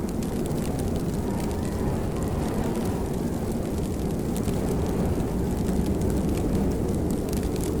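Steady heavy rain, a dense deep wash of noise with scattered sharp drop ticks on top.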